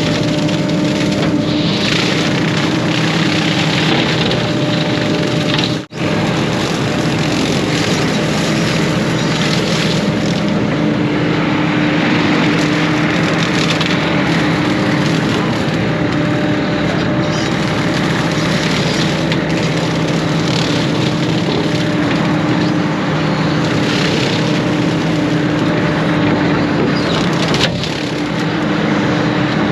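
Case 140 excavator's diesel engine and hydraulic brush cutter running steadily under load, chewing through brush with woody cracking. The sound drops out abruptly for an instant about six seconds in.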